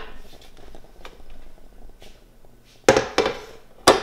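A kitchen griddle being handled and pulled out of a cabinet: a few light rattles and clicks, then two sharp knocks about a second apart near the end.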